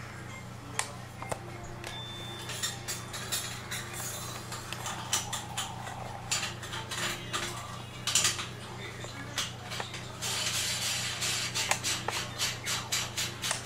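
Chrome basin drain pipe and its fittings being handled and screwed on by hand under a washbasin: scattered metal clinks, taps and scrapes, then a quicker run of clicks in the last few seconds.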